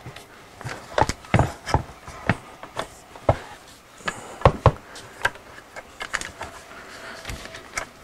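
Irregular sharp clicks and knocks from the parts of an EDgun Matador air rifle being handled as its stock frame is pushed forward and seated on the puzzle joint.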